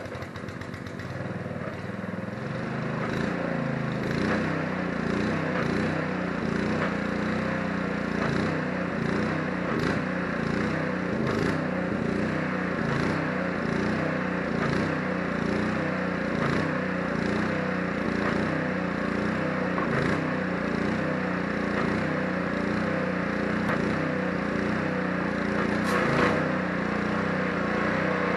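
Gas pressure washer's small engine running steadily after being started, its level building up over the first few seconds and then holding even.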